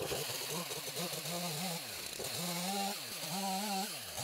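Chainsaw cutting through a log, its engine pitch sagging and coming back up several times as the chain works through the wood.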